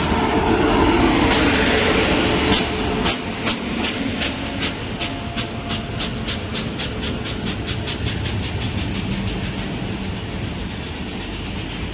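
An electric locomotive and its passenger coaches passing close by at speed. First comes a loud rush as the locomotive goes past, then a steady clickety-clack of the coach wheels over the rail joints, several clicks a second.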